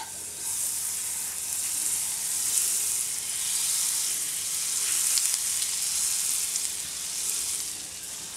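Butter sizzling as it melts and foams in a hot frying pan, after a single tap of the spoon against the pan at the start. The sizzle is steady and eases off near the end.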